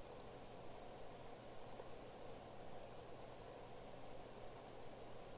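Computer mouse clicking five times, each click a quick double snap of press and release, over a faint steady hiss.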